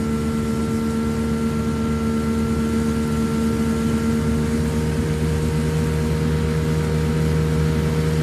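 Sharmax 9.8 outboard motor running steadily at speed, driving an inflatable boat, with water and wind noise; the engine note drops slightly about halfway through.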